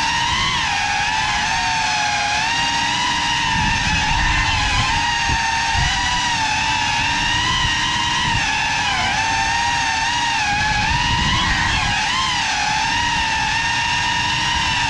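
FPV drone's motors and propellers whining steadily, the pitch wavering up and down with the throttle as it flies fast, with a low rush of prop wash underneath.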